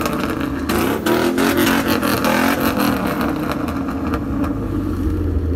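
Car engine revving over and over, its pitch rising and falling every second or so, over a steady low engine rumble.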